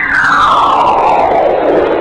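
Spacecraft radio and plasma-wave data converted to audio: a whistle-like tone sweeps steadily downward in pitch over about a second and a half, over a crackling hiss.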